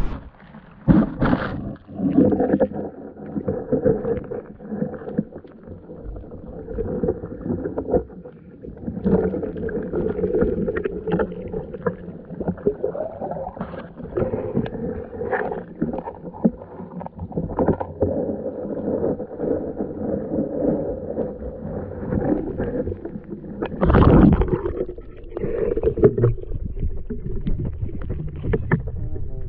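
Muffled water sloshing and gurgling with scattered knocks, heard through an action camera's waterproof housing held in a tidepool. The loudest knock comes about three quarters of the way through.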